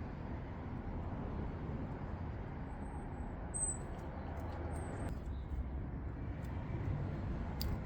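Steady rumble of distant road traffic, with a few faint, very high, thin chirps from small garden birds about three to four seconds in and a sharp click near the end.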